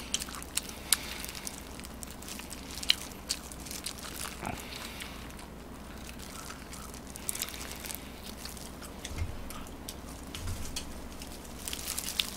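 Close-up mouth sounds of a person biting and chewing fried chicken: irregular sharp crunches and chewing noises, busiest near the end.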